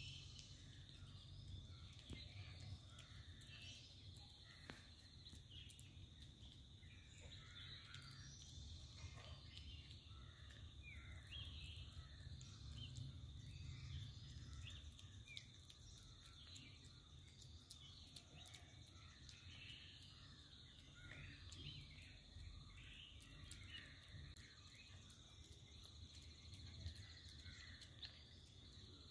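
Faint outdoor ambience: a steady high-pitched insect drone with scattered bird chirps and a low background rumble.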